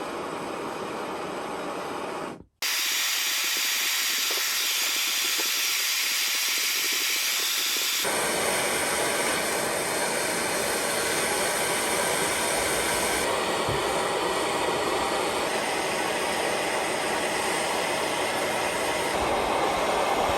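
Gas blowtorch hissing steadily as it heats a steel part for blackening with boiled linseed oil, with a brief dropout about two and a half seconds in.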